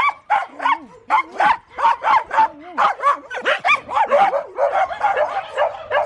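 Several kooikerhondjes in a kennel run barking and yipping, a rapid, overlapping run of short barks at about three a second.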